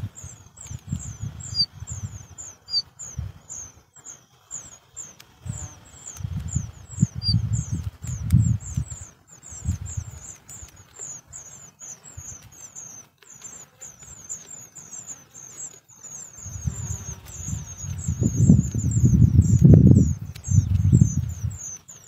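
A steady string of thin, high, downward-slurred chirps, about four a second, typical of nestlings begging while the parent is at the nest. Low, irregular rumbles of wind on the microphone come and go and are loudest a couple of seconds before the end.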